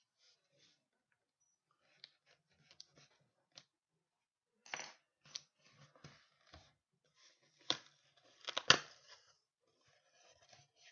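Cardboard shipping case being cut and torn open: a blade slicing through packing tape and cardboard, with irregular scrapes, rips and sharp snaps, the loudest two about three-quarters of the way through.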